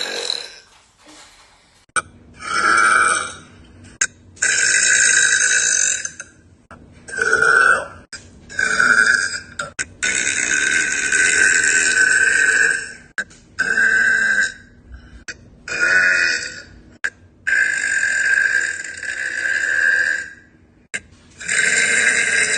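A woman burping loudly over and over, about ten burps in a row. Some are short, and a few are drawn out for two to three seconds.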